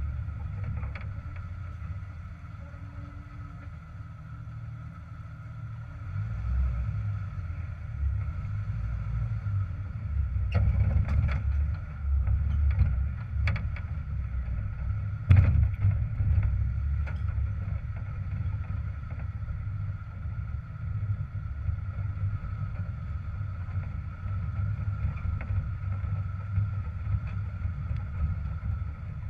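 Jeep TJ engine running at low speed as it crawls over a rocky creek bed, a low rumble that swells and eases, with a steady thin whine above it. A few sharp knocks come in the middle, the loudest about halfway through.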